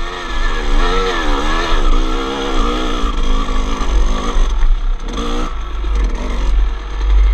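Two-stroke 250 dirt bike engine revving up and down on a muddy hill climb, its pitch rising and falling over and over, then turning rougher and more uneven in the second half, over a heavy low rumble.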